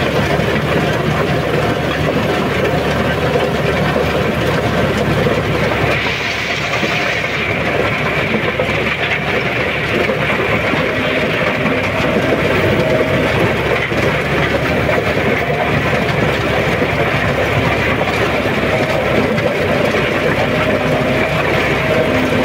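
John Deere 5210 4x4 tractor's diesel engine running steadily under load, pulling a rotavator through ploughed soil, heard from the open driver's seat.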